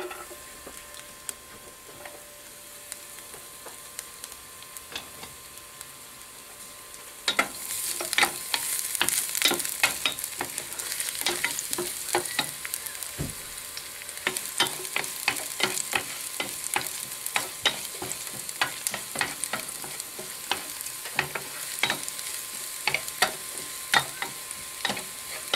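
Hot oil in a pan hissing faintly, then garlic going in about seven seconds in and sizzling loudly, with frequent sharp taps and scrapes of a utensil stirring it against the pan.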